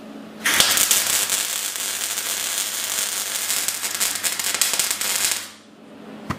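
Electric arc welding on steel: the arc crackles and spits steadily for about five seconds as a bead is laid joining a steel tube to a steel bar, with a faint low hum under it, then cuts off as the arc is broken.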